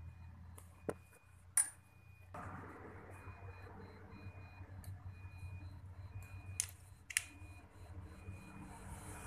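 Clicks and knocks of a Yamaha Mio's stock carburetor being handled and taken off, with a few sharp clicks about a second and a half in and again near the seven-second mark. Underneath is a low steady hum with a faint short beep repeating every half second or so.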